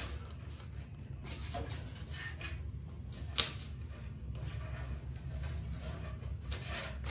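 Kite paper being handled and rustled on a wooden table in a few short spells, with one sharp tap about halfway through, over a steady low hum.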